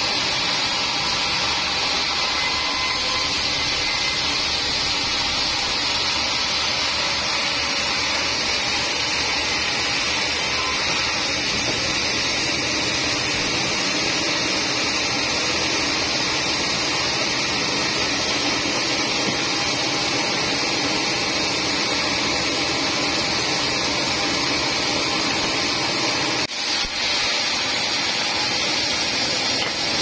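Sawmill band saw running steadily as its blade rips lengthwise through a teak log, an even, hissing whine, with a brief drop in level near the end.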